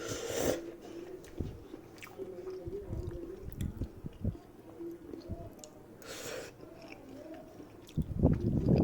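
Close-up chewing of Saffola Oodles noodles: soft, irregular wet mouth sounds, with two short hissing sounds, one right at the start and one about six seconds in. A louder, denser burst begins near the end.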